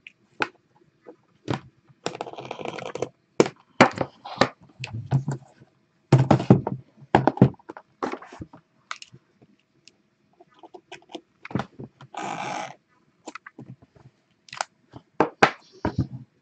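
Hands working at an aluminium briefcase-style card case with a folding utility knife: a string of sharp clicks and knocks on the metal case, broken by a few short scraping, rustling passages.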